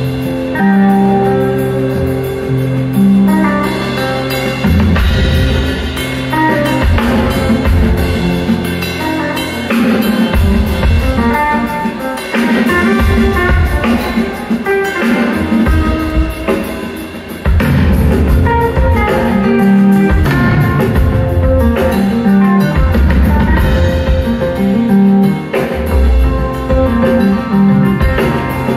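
Rock band playing live: drum kit and guitars in an instrumental passage, with no singing.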